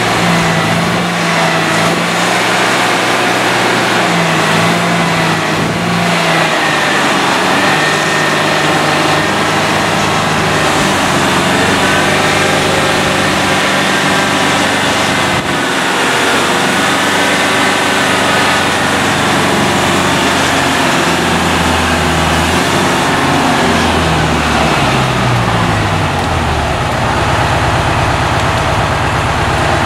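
Diesel engine of a truck-mounted crane running under load as it works the hoist, its revs rising and falling, then dropping to a lower steady speed near the end.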